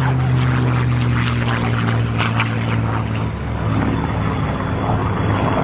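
Rolls-Royce Merlin piston aero engine of a Second World War warplane droning overhead as it flies past, its pitch sinking slowly.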